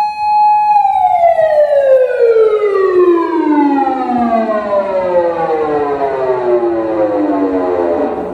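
Osaka Siren MK-10 (TSK-5101V) electronic siren amplifier sounding a siren tone. The tone holds steady for under a second, then glides slowly and evenly down in pitch for about seven seconds and cuts off near the end.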